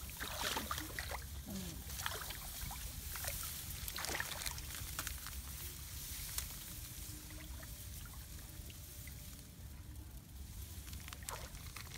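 Rice stalks rustling and shallow paddy water trickling and splashing around someone wading and crouching among the plants, over a steady low rumble. The rustles and small knocks are busiest in the first five seconds or so and thin out after.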